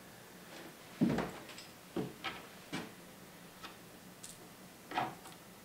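Small clicks and taps of the under-cabinet light's mounting brackets and hardware being handled: about seven irregular knocks, the loudest about a second in and near the end.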